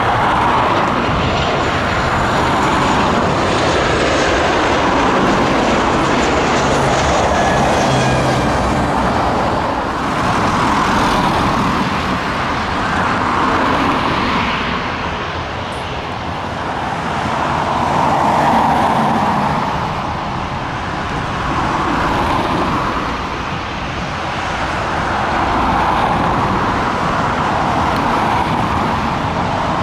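Jet airliner engines running loud: a steady rush that swells and eases every few seconds, with a faint falling whine in the first several seconds.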